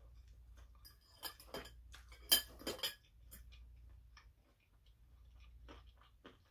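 A metal fork clinking against a ceramic salad bowl: a cluster of sharp clinks from about one to three seconds in, then a few quieter taps near the end, with soft chewing between.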